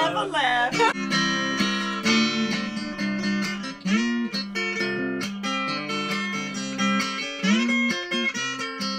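Guitar music: plucked and strummed guitar notes, with a few notes sliding up in pitch.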